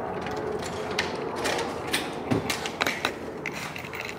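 Scattered knocks and clicks of things being handled and set down, with one dull thud a little after two seconds in.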